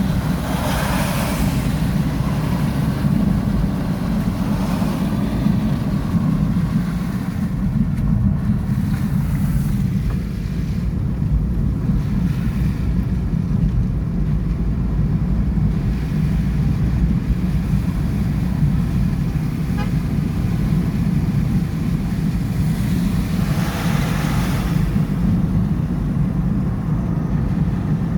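Rainstorm: a steady, loud low rumble, with swells of hiss about a second in, around five seconds and near the end.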